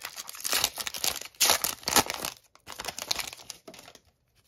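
Foil wrapper of a hockey card pack being torn open and crinkled by hand. The crackling is loudest in the first two seconds, then thins to a few crinkles and stops about four seconds in.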